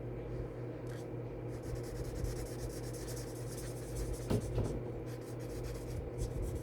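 Scratching and rubbing on paper, with a couple of light knocks about four seconds in, over a steady low hum.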